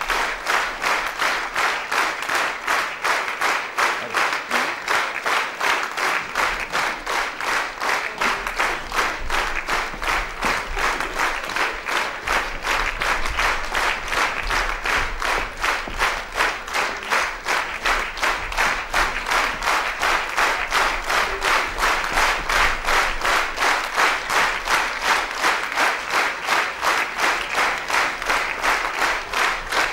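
Theatre audience applauding in unison, a steady rhythmic clapping of about two to three claps a second.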